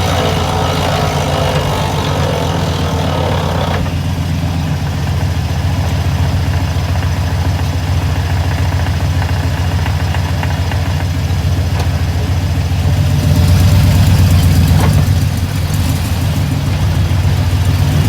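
1996 GMC K2500 pickup's engine running at a steady idle. A higher, rougher noise rides over it for the first four seconds and stops abruptly. The engine gets louder for a couple of seconds about two thirds of the way through.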